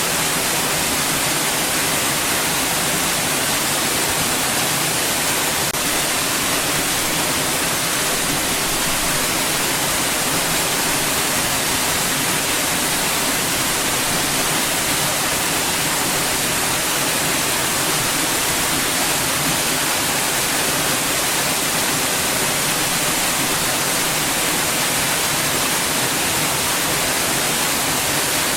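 Steady white noise: an even, unchanging hiss, brightest in the high treble.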